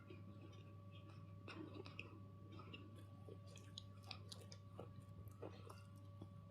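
Faint, irregular crunching and chewing of a black bar, a quick run of small crackles, over a steady low electrical hum.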